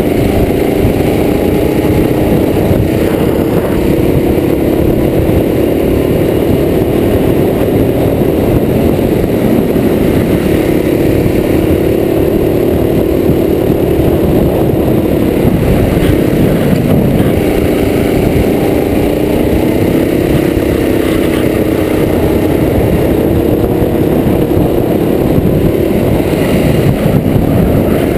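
Kart engine running hard on track, its pitch dipping and climbing again as the kart brakes for corners and accelerates out of them, over a steady rumble of noise.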